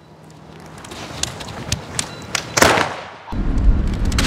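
Wood and cardboard fire crackling in a steel burn barrel, with one sharp thud about two and a half seconds in. Near the end a steady low rumble comes in.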